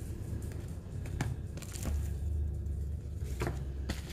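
Small cosmetic packaging being handled: a few light taps and clicks, about four in all, over a low rumble of handling noise.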